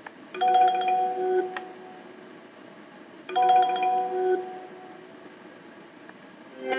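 Cisco IP desk phone ringtone chiming twice, each ring a short electronic melody about a second long, about three seconds apart; a different ringtone starts right at the end.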